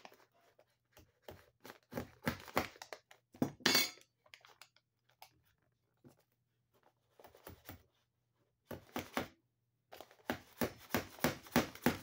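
Hammer tapping cable staples into a wooden stud to fasten Romex cable. A few scattered blows come first, then a quick run of taps, about four a second, near the end.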